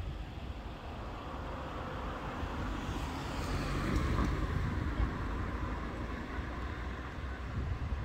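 Road traffic noise, a steady low rumble that swells about three seconds in and eases after five.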